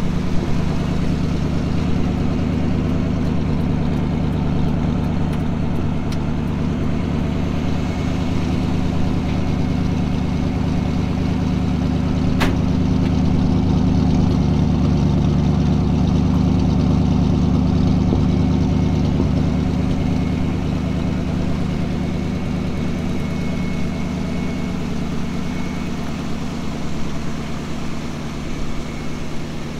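1958 Chevrolet Viking 60 wrecker truck's engine idling steadily, with a single sharp click about twelve seconds in.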